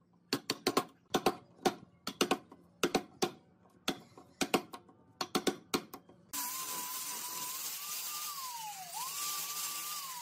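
A wood chisel being struck to chop a mortise: a series of sharp knocks, many in close pairs. About six seconds in, an angle grinder with a flap sanding disc cuts in with a steady whine whose pitch sags once under load and then recovers.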